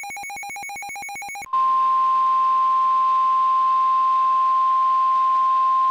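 NOAA Weather Radio warning alarm tone: a loud, steady single tone near 1050 Hz that starts about a second and a half in. It signals that an urgent warning, here a tornado warning, follows. Before it, a buzzy electronic tone pulsing about ten times a second cuts off.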